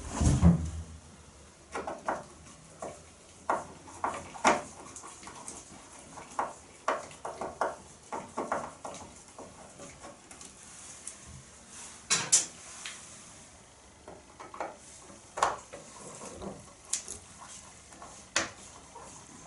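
Irregular small metallic clicks and clinks of a screwdriver and tools working the screws on a classic Austin Mini's hinged side window. There is one louder clatter about twelve seconds in.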